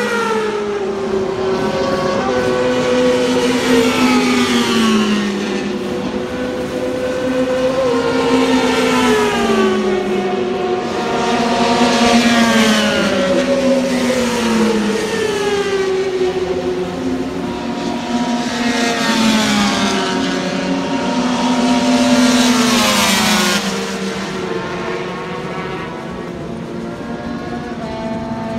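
Classic four-stroke racing motorcycles running hard down the straight, one after another. Their engine notes drop in pitch again and again as each bike goes by.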